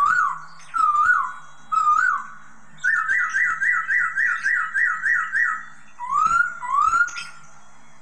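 Caged bulbul singing clear whistled phrases: three short wavering notes, then a quick run of about a dozen repeated notes at about four a second, then two rising whistles.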